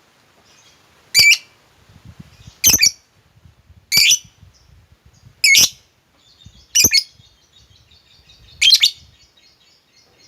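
Lovebird giving six short, loud, shrill calls about a second and a half apart, with faint rapid twittering between them.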